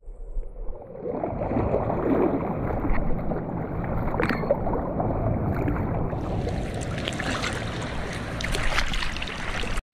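Water sloshing and lapping around an action camera at the waterline while paddling a surfboard. It is dull and muffled for the first six seconds or so, then clearer and splashier.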